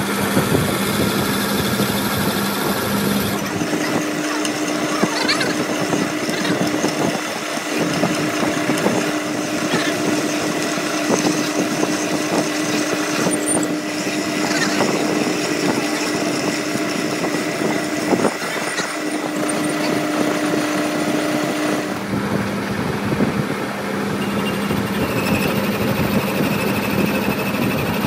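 Workshop machine running with a steady hum that steps up in pitch about three seconds in and drops back down near the end, over dense crackling noise.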